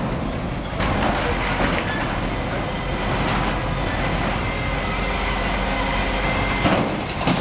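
Garbage truck's diesel engine running with its hydraulic crane working as an underground waste container is lowered back into its shaft. A faint steady high whine runs through it, with a few clanks about a second in and near the end.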